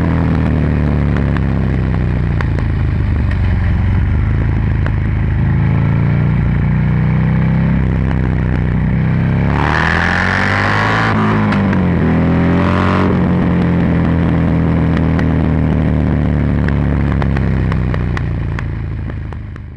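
Buell XB9SX's 984 cc air-cooled V-twin running at road speed through an aftermarket Penzl exhaust with its flap open, heard close to the muffler. Past the middle the engine note drops and then climbs again, with a rush of hiss, and the sound fades out at the end.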